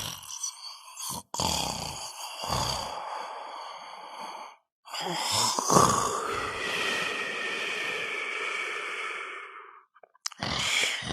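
Comic snoring sound effect: a sleeper's loud snoring breaths one after another, with short silent gaps between them. The first breaths have a low rattle, and one breath in the middle is drawn out for about five seconds.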